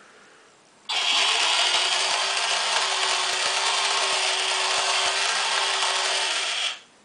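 Haynes Build Your Own Engine model, its small electric motor driving the clear plastic four-cylinder engine's crank, pistons and valve gear. It is switched on about a second in, with a whine that rises as it spins up, then runs loud and steady before stopping abruptly near the end.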